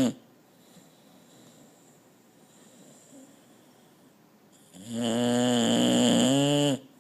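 Snoring: the end of one snore right at the start, then a quiet pause, then one long, loud, pitched snore of about two seconds beginning about five seconds in.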